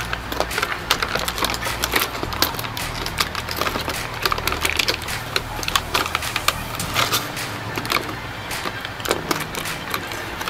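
Black plastic toy train track pieces clattering and a thin vacuum-formed plastic packaging tray crackling as they are handled, a quick run of small irregular clicks and rustles over a low steady hum.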